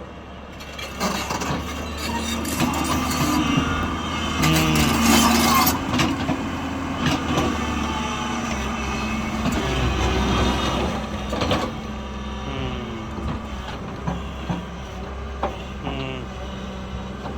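Heavy diesel machinery at work: a steady low engine hum with scattered knocks and clanks, and a loud hissing burst about four to six seconds in.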